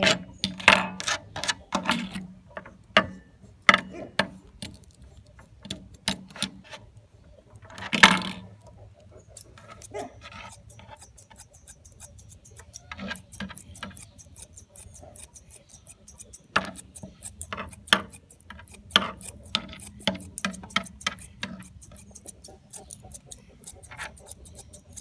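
Grooming scissors snipping through a Newfoundland's foot hair: a run of sharp clicks, coming quickly in places, with one louder, longer noise about eight seconds in.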